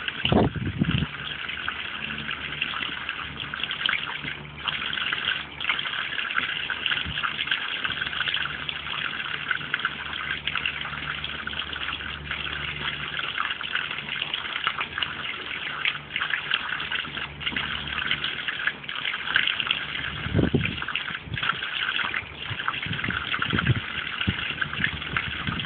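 A garden hose nozzle spraying a steady jet of water onto a pond, a continuous splashing hiss, with a few short low thumps about a second in and again near the end.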